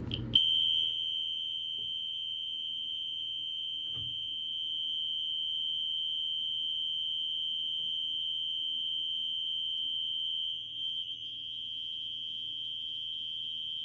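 System Sensor SpectrAlert Classic fire alarm horn sounding continuously: one steady, unbroken high-pitched tone that starts about half a second in.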